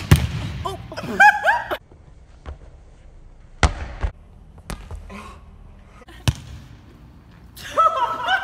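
A volleyball hit hard in a spike with a sharp smack, followed by excited high-pitched shouts. Then a few separate sharp ball impacts echo in a large gym, with voices again near the end.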